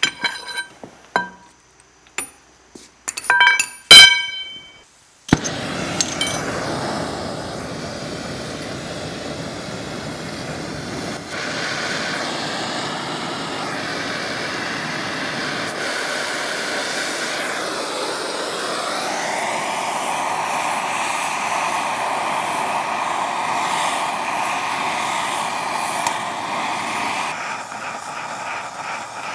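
A steel bar clanks and rings against the front axle's steering knuckle several times, the loudest knock about 4 s in. Then an oxy-fuel torch lights with a pop and hisses steadily as it heats the knuckle to loosen the ball joints, its tone shifting around 19 s as the flame is adjusted.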